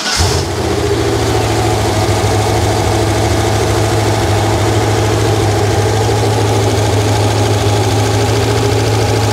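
Rebuilt Ford 302 small-block V8 running on an engine stand, idling steadily just after it catches.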